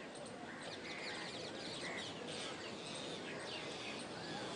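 Outdoor bird ambience: many short chirps and calls from several birds overlapping over a steady hiss.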